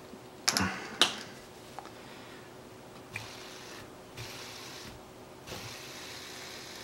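Two sharp clicks about half a second apart near the start, then a few faint ticks, as small parts of a ceramic ball bearing are handled and pulled apart by hand.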